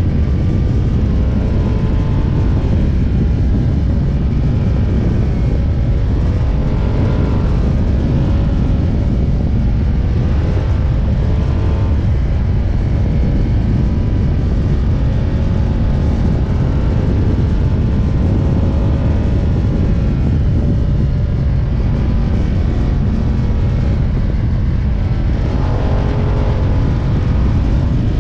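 Ducati Diavel's L-twin engine pulling in third gear at speed, its pitch drifting up and down a little with the throttle, under heavy wind rush on the camera microphone.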